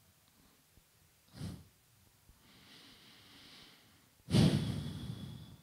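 A woman breathing close into a handheld microphone during a pause in her speech: a short puff of breath about a second in, a faint drawn-in breath, then a loud exhale a little past four seconds in.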